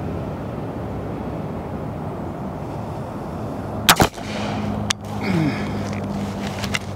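A single .357 Magnum shot from a Henry Big Boy lever-action rifle, about four seconds in. Smaller clicks follow as the lever is worked to eject the spent case and chamber the next round. Steady background noise runs underneath.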